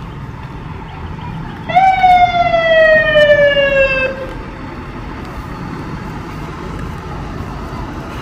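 Fire truck siren giving one short wail about two seconds in: a quick rise, then a pitch that falls steadily for about two seconds before cutting off. It is much louder than the low street background.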